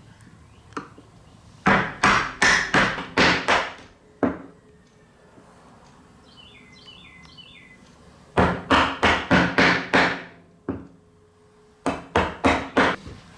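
Wooden mallet striking a bench chisel, chopping dovetail waste out of the board's end grain. The knocks come in three quick runs, about three a second, with pauses between.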